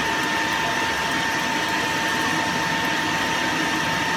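Metal lathe running and cutting a large steel disc with a single-point tool at the centre of its face: a steady machine noise with a steady high-pitched whine.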